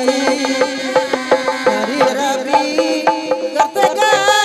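Sundanese benjang procession music: fast, busy drumming and gongs under a held, wavering melody line.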